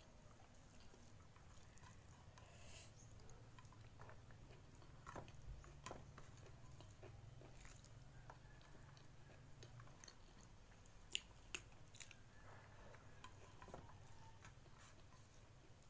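Faint close-up mouth sounds of a person eating rice, fried egg and petai beans with her fingers: soft chewing with scattered small clicks and smacks. Two sharper clicks come about two-thirds of the way through, over a steady low hum.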